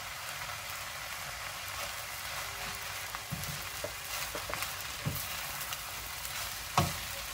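Fried rice sizzling steadily in a nonstick frying pan as a wooden spoon stirs and turns it. The spoon knocks and scrapes against the pan a few times, loudest near the end.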